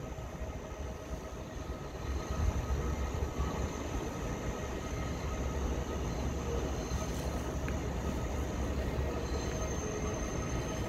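Train in a rail yard: a steady low rumble with a faint steady whine over it.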